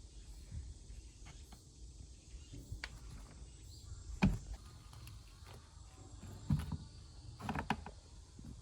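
A few scattered knocks and light clatters of objects being handled, the loudest about four seconds in and a cluster near the end, over a low steady background rumble.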